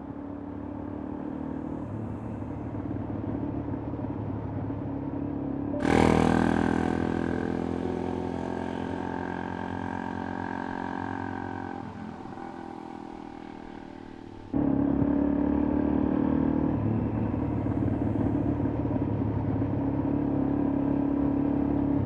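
Suzuki DR-Z400 dual-sport motorcycle's single-cylinder engine running. It grows louder over the first six seconds, changes abruptly and fades away over the next eight, then about fourteen seconds in jumps to a loud, steady note heard from on the bike as it rides along a gravel road.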